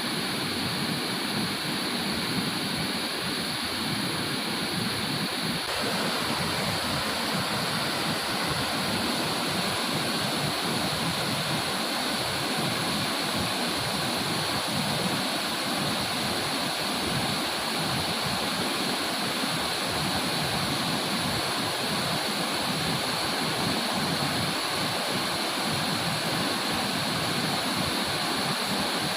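Steady rush of a waterfall's falling water, with no breaks; the sound grows slightly fuller about six seconds in.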